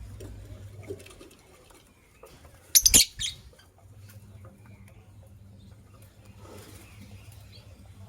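Lovebird briefly fluttering its wings, a quick flurry of strokes about three seconds in, over a steady low hum.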